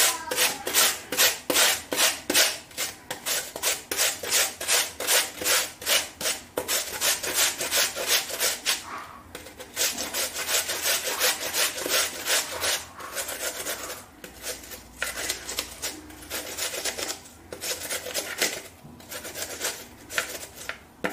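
Peeled crown pear being grated on a hand grater: quick, even rasping strokes, about three a second, broken by a few short pauses.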